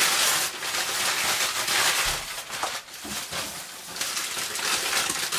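Packing paper rustling and crinkling as it is handled and pulled out of a shipping box, a steady run of small crackles that eases off briefly about three seconds in.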